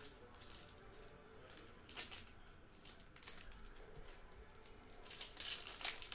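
Foil wrapper of a trading-card pack crinkling and tearing as it is opened, faint, with a sharp crackle about two seconds in and a louder stretch of crinkling near the end.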